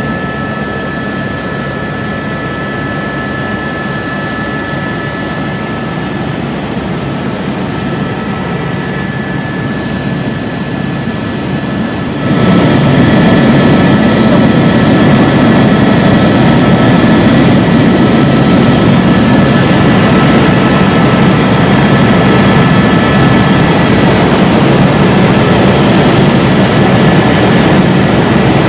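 Helicopter cabin noise in flight: a steady rumble from the rotor and engine with a constant high whine from the turbine and gearbox. About twelve seconds in it turns abruptly louder and heavier.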